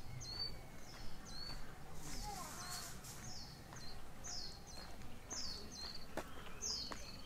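A small bird calling over and over, a steady run of short high notes that fall in pitch, about two a second. A few sharp clicks come near the start and near the end.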